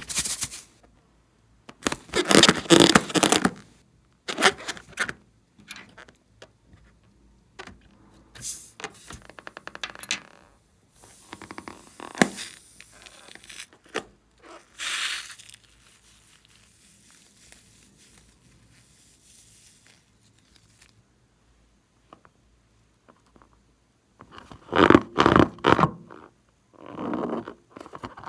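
Slime-making handling sounds: scraping noises in irregular bursts, with a quieter stretch of several seconds late on before a loud burst near the end.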